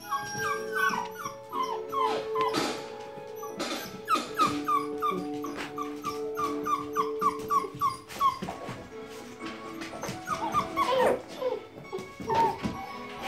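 Black Labrador retriever puppies whimpering and yipping for attention: runs of short, falling high-pitched cries, several a second, over long steady tones.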